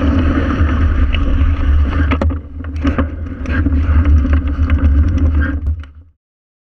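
Wind rumbling on a handlebar-mounted GoPro's microphone during a bicycle ride, with tyre noise on asphalt and scattered clicks and rattles from the bike going over bumps. The sound cuts off about six seconds in.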